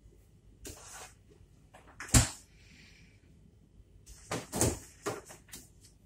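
Knocks and clatter from a refrigerator being rummaged through: one sharp knock about two seconds in, then a quick cluster of clunks and rattles between about four and five and a half seconds in.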